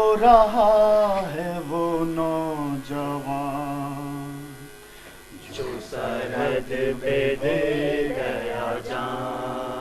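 Slow singing: a voice holds long, wavering notes over a steady low accompanying tone. It breaks off about five seconds in, then resumes.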